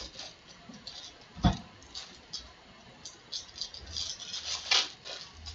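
Foil baseball card pack wrapper crinkling and cards sliding against each other as a Topps pack is opened and the cards are thumbed through by hand. There is a dull thump on the table about a second and a half in.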